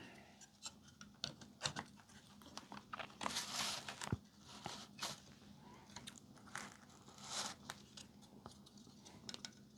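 Faint rustling and light clicks of circuit boards being handled and lined up on a board-to-board connector.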